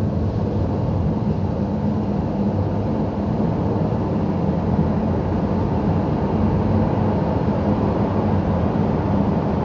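Steady low drone of a car driving along, heard from inside the cabin: engine and tyre noise holding even throughout.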